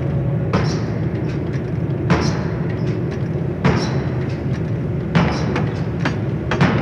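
30 cwt Massey drop hammer striking, five heavy blows about a second and a half apart, over a steady low machinery drone with lighter metallic knocks between the blows.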